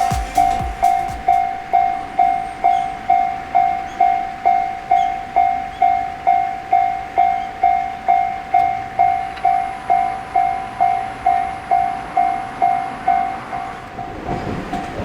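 Railway level crossing warning bell ringing steadily, one pitched tone struck about twice a second, signalling that a train is approaching. Near the end a low train rumble starts to rise under it.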